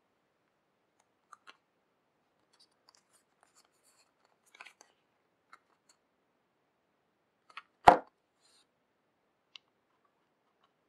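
A small packaging box being handled and opened: scattered faint clicks and rubbing, with one sharp knock about eight seconds in.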